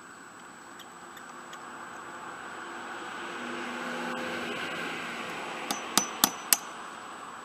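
Four sharp metal taps about a third of a second apart near the end, from a hammer driving a pin into a small-engine electric starter. Before them, a few faint clicks, and background noise that swells and fades.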